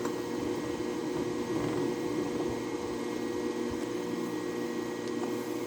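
Steady machine hum with a light hiss, like a running fan or motor, holding an even level throughout.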